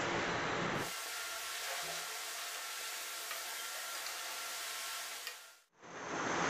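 A steady hiss from a large aluminium pot of beef, onions, tomatoes and water heating over a high gas flame while a wooden spoon stirs it. The hiss fades out about five seconds in, and a fuller simmering noise comes in near the end as the water comes up to the boil.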